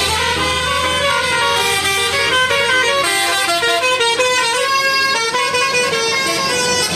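Indonesian 'telolet' bus horn, a multi-trumpet musical horn of the Basuri type, playing a quick tune of held notes that step up and down in pitch.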